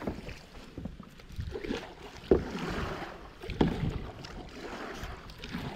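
Kayak paddle strokes in the water, with splashing and dripping, wind on the microphone, and two louder strokes about two and a half and three and a half seconds in.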